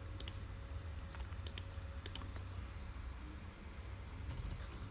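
Scattered key presses and clicks on a computer keyboard and mouse, mostly in quick pairs, a few times over a few seconds, above a low steady hum.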